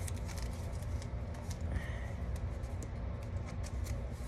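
Scattered soft clicks and rustles of Pokémon trading cards and card packs being handled, over a steady low hum.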